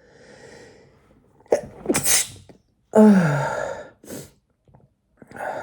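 A man's full, unstifled sneeze. A breath drawn in, then a sharp hissing burst about two seconds in, then a loud voiced cry falling in pitch, followed by short breaths.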